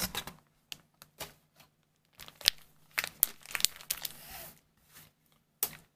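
Foil trading-card booster pack wrappers crinkling as they are handled, in scattered sharp crackles with a longer rustle about four seconds in.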